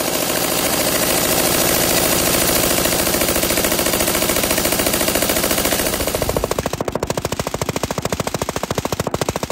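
M249 SAW belt-fed light machine gun firing 5.56 mm rounds on full automatic in long, sustained bursts. About six seconds in the sound changes to a second stretch of rapid fire in which each shot stands out separately.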